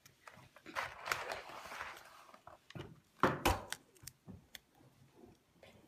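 Small plastic toy parts being handled and worked apart: a stretch of rustling, then a few sharp clicks about three and a half seconds in, the loudest sound.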